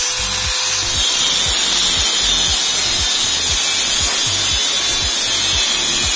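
Angle grinder with a thin cut-off disc cutting through a steel chain sprocket: a steady grinding hiss that comes up about a second in as the disc bites into the metal. Background music with a steady beat plays over it.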